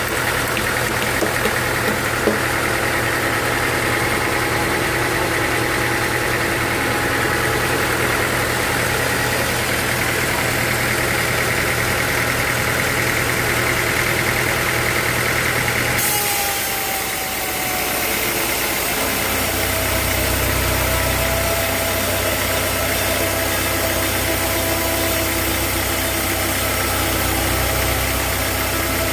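Sawmill machinery running steadily with an engine-like drone. About halfway through the sound changes suddenly: the high hiss drops away, and a couple of seconds later a deeper steady hum takes over.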